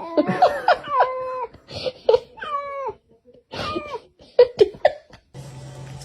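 A cat meowing in a series of short calls that fall in pitch, some of them drawn out. About five seconds in, the calls stop and steady music begins.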